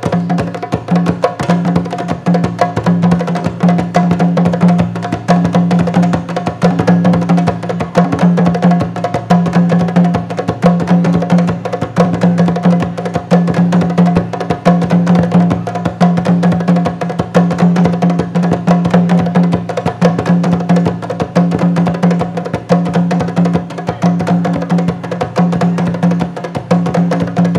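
Ensemble of rope-tuned hand drums playing a fast, dense rhythm, with a deep drum tone pulsing steadily underneath.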